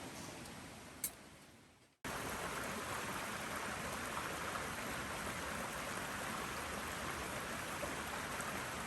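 A fading hiss with a single sharp click about a second in, cut off abruptly; then a steady, even rushing of water, which carries on to the end.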